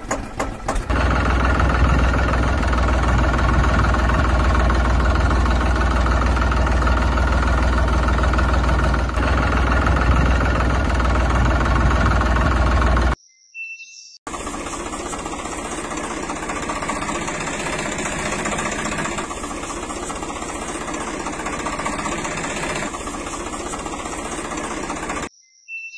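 Tractor engine running, a clip laid over the picture. It opens with a few even pulses, then runs steady and loud until it cuts off suddenly about halfway through. A second, somewhat quieter stretch of engine running starts a second later and stops just before the end.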